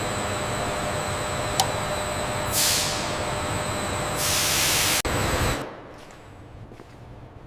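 Steady factory machinery noise with a faint click, then two bursts of air hiss from pneumatic equipment, the second longer and louder. Just past the middle the machinery noise falls away to a quieter background with a few faint clicks.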